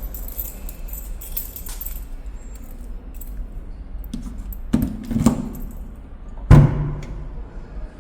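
Keys jangling, then a few knocks and one heavy thud about six and a half seconds in.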